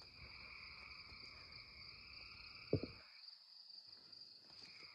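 Steady night chorus of crickets and frogs, an even high-pitched drone. A single sharp knock sounds a little past halfway.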